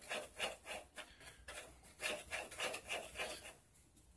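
Bondo body filler being mixed on a wooden board with a plastic spreader: a regular scraping and smearing, about three strokes a second, easing off near the end.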